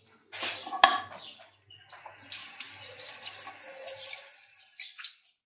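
A metal utensil clinks once against cookware about a second in. It is followed by a few seconds of wet, splashy noise that cuts off just before the end.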